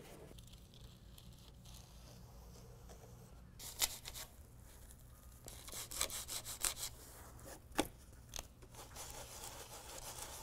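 A cloth rubbing and wiping over the truck's plastic tailgate and pillar trim, heard as faint scraping. Several short, sharp handling scrapes and clicks come in the middle stretch.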